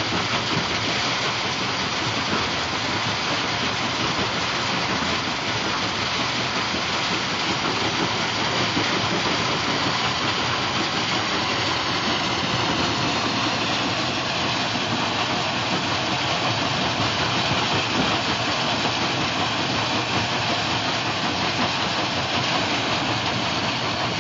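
Stone-crushing plant running, its jaw crusher and belt conveyors making a loud, steady din of machinery noise.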